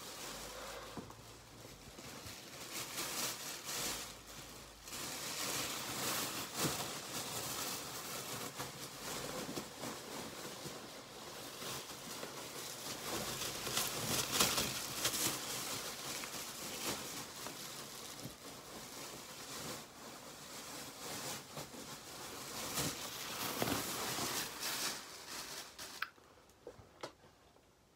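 A shopping bag rustling and crinkling as a pillow is pushed back into it and the bag is handled, in uneven bursts; the rustling stops about two seconds before the end.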